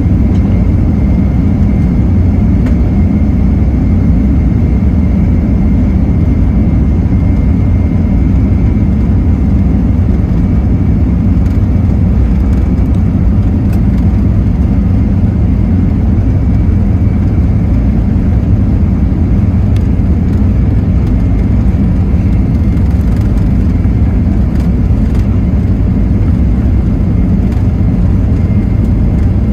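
Cabin noise of a Boeing 737-800 taxiing, heard from a seat over the wing: its CFM56-7B turbofan engines running steadily at low thrust under a deep rumble, with a faint steady whine above.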